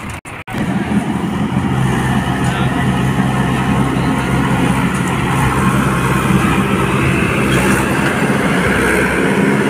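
Swaraj 843 XM tractor's three-cylinder diesel engine running hard under load, pulling a loaded trailer through wet sand while its rear tyre churns through water. The sound cuts out twice in the first half second, then the engine runs loud and steady.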